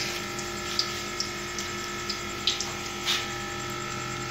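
Hot oil sizzling steadily around frying chicken, with a few sharp crackles and pops scattered through it, over a steady low hum.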